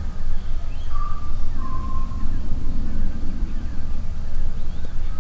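Bush ambience: a few short whistled bird calls, about one and two seconds in, with faint higher chirps, over a steady low rumble.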